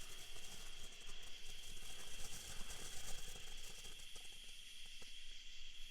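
Golden Flower box fountain firework spraying sparks with a steady hiss and crackle that dies away near the end as the fountain burns out.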